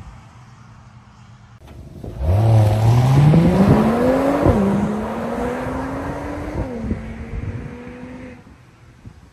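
Mercedes-AMG GLE 53's turbocharged inline-six accelerating hard under full throttle, heard through its exhaust. The engine note climbs steeply and drops sharply twice at upshifts, then grows fainter and cuts off near the end.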